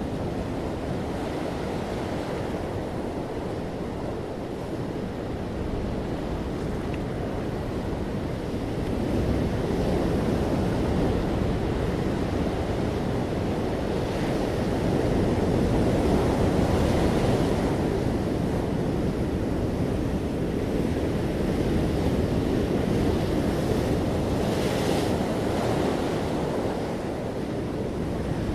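Ocean waves breaking and washing on a beach, a continuous surf noise that swells and eases over a few seconds, with a couple of brighter hissing washes.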